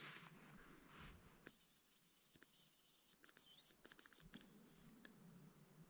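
Hazel grouse decoy whistle sounding close by: two long, high, steady whistles, then a few short broken notes with a dip in pitch, imitating the hazel grouse's song.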